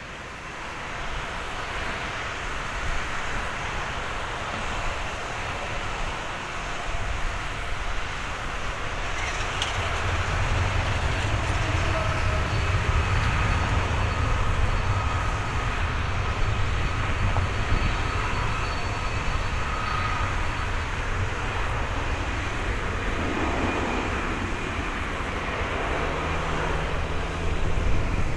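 Airbus A330-223 airliner's twin Pratt & Whitney PW4000 turbofans at low taxi thrust as it taxis onto the runway: a steady jet rumble with a faint high whine. It grows louder over the first ten seconds or so as the aircraft comes closer.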